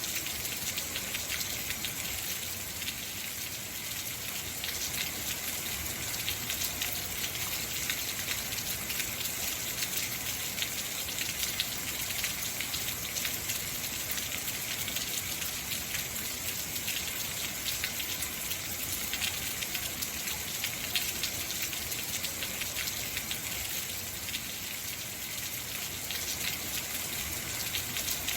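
Heavy rain falling steadily, a dense hiss of drops with many fine ticks of drops striking surfaces.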